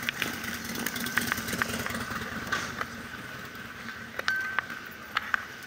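A motorcycle engine running at idle amid city street noise, its low hum fading after a couple of seconds, with scattered sharp clicks.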